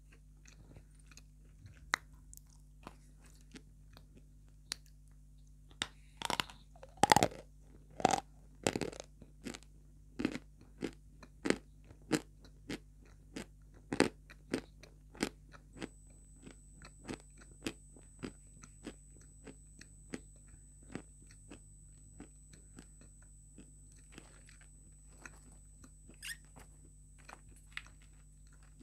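Close-miked chewing of dry white edible clay chunks: a run of sharp crunches, roughly one every half second or so, loudest in the first third. A faint steady high whine sets in about halfway.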